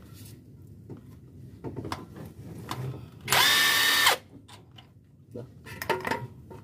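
Cordless power wrench run in one short burst of under a second, a steady whine about three seconds in, with small clinks of tools and metal parts around it.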